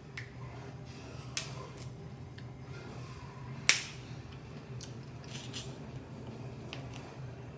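Close-up eating sounds from a seafood meal: a few sharp cracks and clicks, the loudest just past the middle, over a low steady hum.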